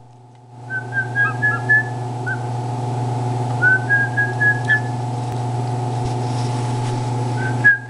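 A person whistling short runs of quick, slightly rising notes, with pauses between the runs. A steady low hum sounds underneath and stops shortly before the end.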